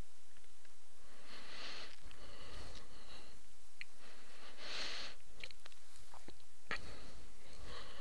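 Breaths drawn into a close microphone, about once every three seconds, with a few faint clicks between them.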